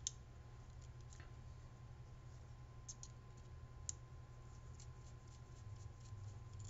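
Faint scattered clicks and ticks of small screws and a hex driver working against a plastic night-vision housing as the screws are turned in finger tight. The loudest click comes about four seconds in, over a low steady hum.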